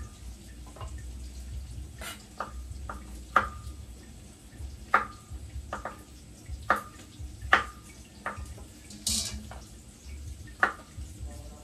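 Kitchen knife cutting okra pods in half on a wooden cutting board: about ten sharp knocks of the blade against the board, spaced unevenly. A brief hiss about nine seconds in.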